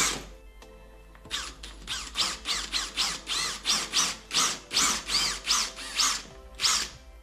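Cordless drill with a 3/16-inch bit boring holes into drywall, run in quick pulses of the trigger so the motor whines up and down about three times a second. The bursts start about a second in, after a short pause.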